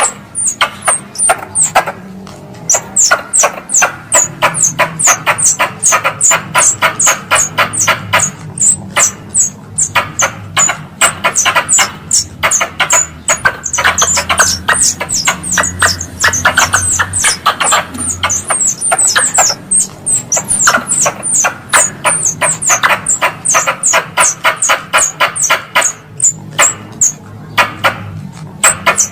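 Squirrel chattering call used as a hunting lure: a fast run of sharp clicks, about eight to ten a second, each with a short high chirp that falls in pitch. It comes in long bouts with brief breaks, over a low steady hum.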